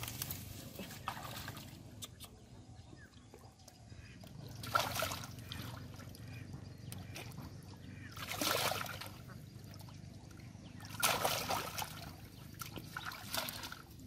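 Hands splashing and sloshing in shallow muddy water while catching a catfish by hand, with four louder splashes.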